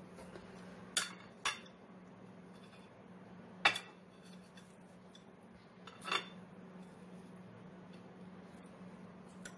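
Kitchen knife clinking and scraping against a ceramic plate while cutting a grilled sandwich: four sharp clinks spread over several seconds, two close together near the start. A faint steady low hum lies underneath.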